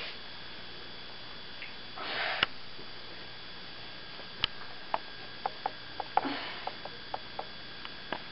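Hands working long hair: a brief rustle about two seconds in, then a dozen or so light clicks and small clinks scattered through the second half, over a steady low hiss.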